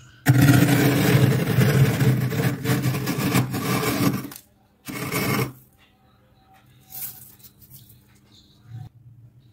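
A clear glass tumbler scraping thick, flaky frost off a freezer's inside walls: one long scrape of about four seconds, then a shorter one about half a second later.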